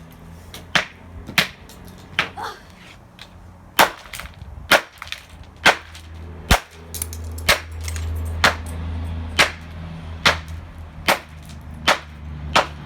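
Repeated sharp blows smashing a Dreamsky DS206 alarm clock radio's cheap plastic casing, about one crack a second, some in quick pairs.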